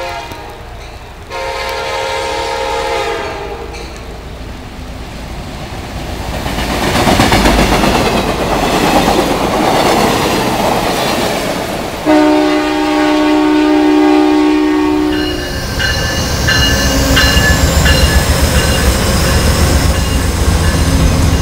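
Amtrak Piedmont passenger train approaching and passing close by. Its diesel locomotive's air horn sounds twice: a chord about a second in, and a louder, lower one about midway. Between the two blasts and after them comes the rolling rumble and clickety-clack of the cars, with thin high ringing tones over it near the end.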